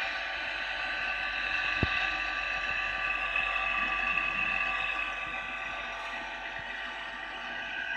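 Vintage thermal camera's sensor-cooling pump running with a steady whine of several high tones, and one sharp click about two seconds in. The pump runs but is not cooling: the owner suspects it has lost its fluid.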